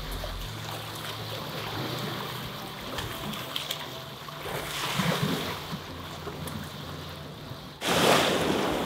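Small waves washing against the rocks and shore, with wind on the microphone. A louder rush of noise starts suddenly near the end.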